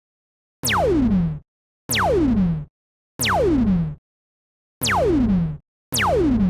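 Synthesized laser-gun sound effect fired five times: each shot is a quick zap whose pitch drops steeply from a high whistle to a low buzz and lasts under a second, repeated at roughly one-second intervals.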